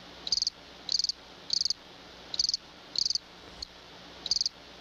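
A cricket chirping: short pulsed chirps repeating about every half second or so, high-pitched and evenly spaced.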